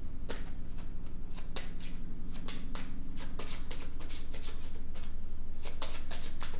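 A deck of astrological oracle cards being shuffled hand over hand, a quick irregular run of soft card flicks and slaps, several a second and busiest near the end.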